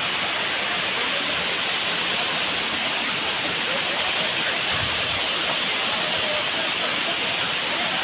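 Waterfall pouring down a rock face into a shallow pool: a steady, unbroken rush of falling water. Faint voices come through now and then.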